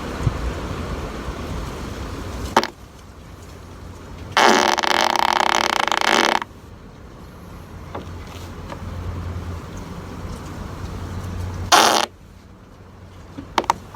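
A buzzy fart sound effect of about two seconds, with a shorter blast near the end, spliced abruptly between stretches of metro train running noise.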